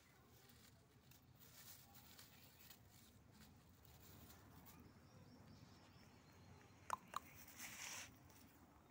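Faint crackle and rustle of dry straw under a baby goat's feet. About seven seconds in come two sharp clicks close together, then a short louder rustle.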